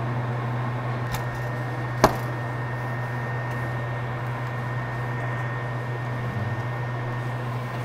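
Steady low hum with a single sharp click about two seconds in.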